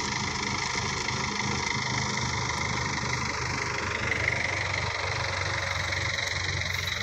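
Rice combine harvester running steadily, a constant engine hum with a broad machine noise over it; the low hum shifts slightly about two seconds in.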